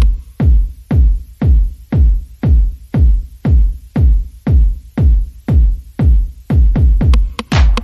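Electronic background music with a steady, thumping kick-drum beat, about two beats a second.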